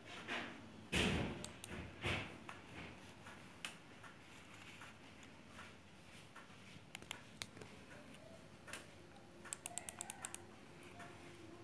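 Someone working a laptop, clicking its keys and mouse. A few soft thumps come in the first two seconds, the loudest about a second in, then scattered single clicks and a quick run of about eight clicks near the end.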